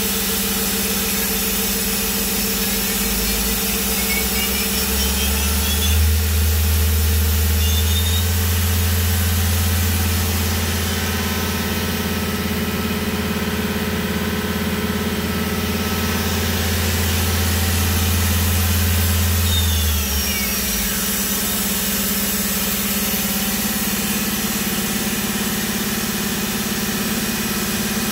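Mori Seiki MT-1500SZ CNC turn-mill center running over a steady machine hum. A spindle spins up with a faint rising whine a few seconds in, runs steadily at about 5,100 rpm, then winds down with a falling whine and stops about twenty seconds in.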